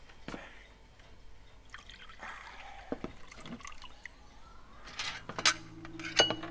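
Coffee being poured, a faint liquid trickle, followed by a few sharp clicks. Low, steady music notes come in about five seconds in.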